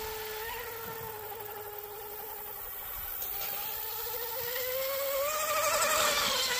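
Brushless electric motor and propeller of an RC racing boat on a 4S lipo, running at speed with a steady high whine. Near the end the whine rises in pitch and grows louder as the boat runs closer, then starts to fall away.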